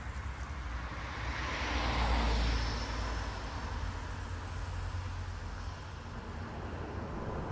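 A car passing by: tyre and engine noise swells to a peak about two seconds in, then fades, over a steady low traffic rumble.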